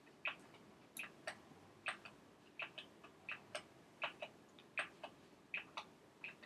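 Faint, irregular clicking of computer keys, two or three clicks a second and some in quick pairs, as a slide is flipped back and forth between two versions.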